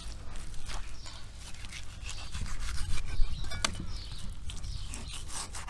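A large knife slicing through a raw lamb leg on a wooden cutting board, with scraping and a few light knocks of the blade and meat against the wood.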